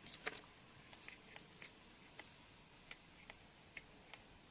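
Faint handling noise from wet stones turned in a muddy hand: a quick cluster of clicks about a quarter second in, then scattered light ticks.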